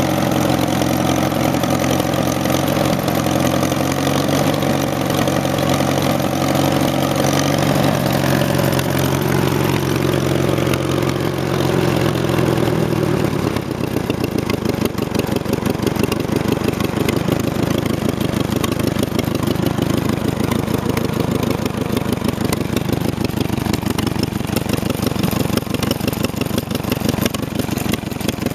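The four-cylinder engine of a 1938 Farmall F-14 tractor running steadily. About halfway through it slows, settling to a low idle in which the separate firing pulses can be heard. It was freshly revived with a rebuilt magneto, new plugs and a new fuel pump.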